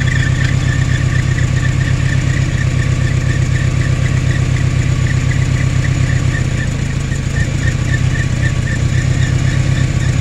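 Dodge Ram pickup's engine idling steadily, with a high chirp repeating a few times a second from a squealing drive belt.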